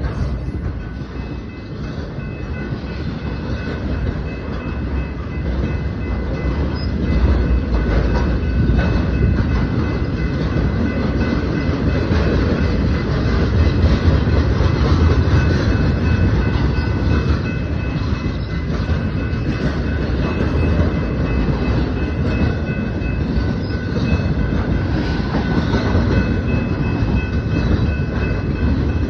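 A freight train rolling past close by: a continuous low rumble of wheels on rail, growing a little louder over the first several seconds, with faint steady high-pitched tones held above it.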